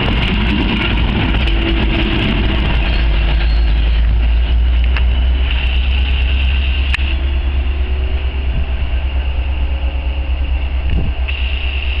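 AMT commuter train's diesel locomotive and cars running past at close range: a loud, steady low rumble with rail and wheel noise.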